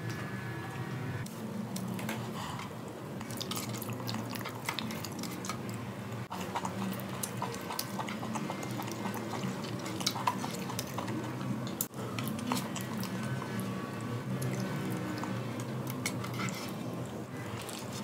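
Background music with wet squishing and many small clicks of fingers mashing food in stew on a stainless steel tray.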